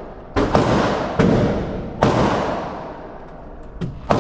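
Five gunshots at an irregular pace, the first two in quick succession, each followed by a long echoing decay.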